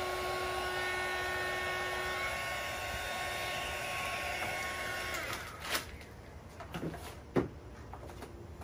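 Small handheld craft heat gun running with a steady whine and blowing air, switched off about five seconds in and winding down. A few light knocks follow, the loudest about seven seconds in.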